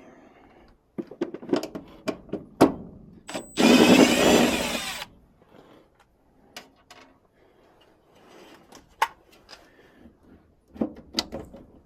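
A cordless drill runs once for about a second and a half, amid scattered clicks and knocks of handling furnace sheet-metal parts.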